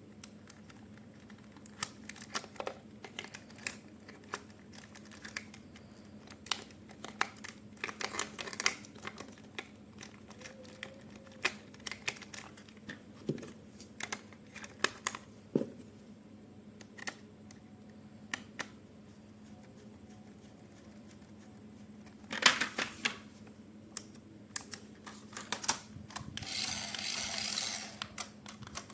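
Hands handling toy packaging and plastic parts: scattered light clicks and taps, a louder clatter about 22 seconds in, and a crinkling rustle of plastic near the end.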